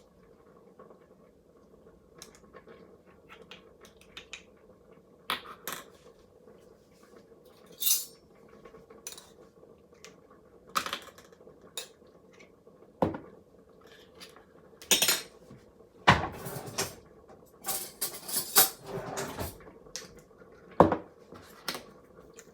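A spoon clinking, knocking and scraping against a pot and container in irregular strokes, as curry paste is added and worked into the coconut milk.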